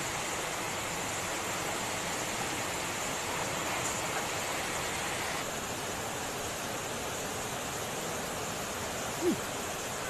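Steady rush of a waterfall pouring into its pool, easing slightly after about five seconds. Near the end, one short low sound slides down in pitch.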